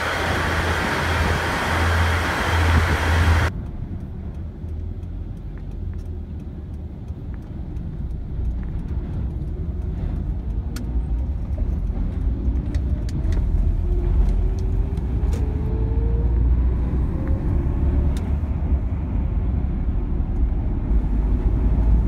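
KiHa 110 series diesel railcar running at the platform with a pulsing low hum, cut off abruptly about three seconds in. After that comes a steady low rumble with scattered clicks and a faint rising engine note from a road vehicle.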